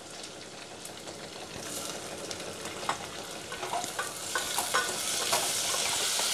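Sliced onions frying in hot oil in a stainless-steel pressure cooker, sizzling and growing louder, with a wooden spatula scraping and knocking against the pot as they are stirred.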